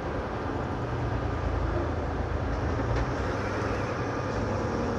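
Steady engine drone and road noise inside a truck's cab at highway speed.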